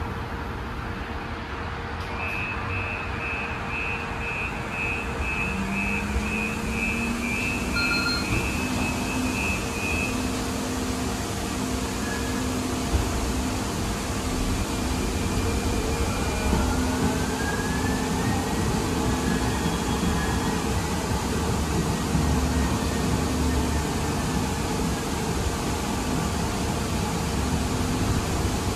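Interior running noise of a 2023 Siemens LRV4 light-rail car: a steady rumble, with a string of short high beeps, about two a second, for the first several seconds. A low motor whine rises in pitch a few seconds in and holds as the car picks up speed, and a second, higher whine climbs about halfway through.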